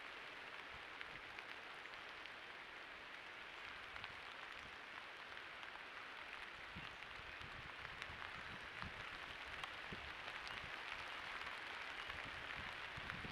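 Steady rain falling: an even hiss with scattered ticks of drops. From about halfway, low rumbles break in now and then, more often near the end.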